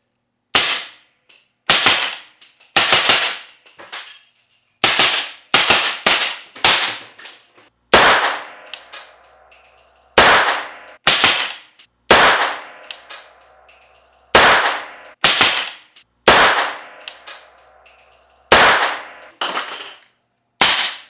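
Noveske 300 Blackout rifle firing subsonic rounds through an AB Suppressor Warthog suppressor, around twenty suppressed shots fired one at a time at an uneven pace of about one a second, emptying the magazine.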